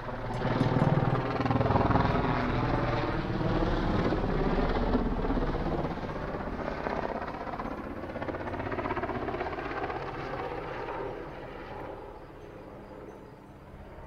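Swiss Army Super Puma twin-turbine military helicopter passing close overhead, its rotor beat and turbine noise loudest a second or two in, then fading steadily as it flies away.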